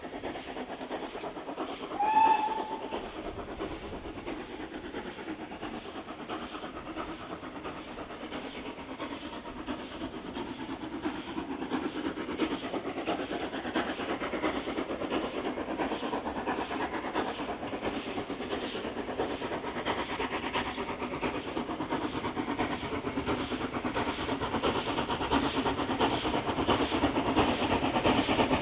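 A steam locomotive gives one short whistle blast, then its rhythmic exhaust beats grow steadily louder as it approaches.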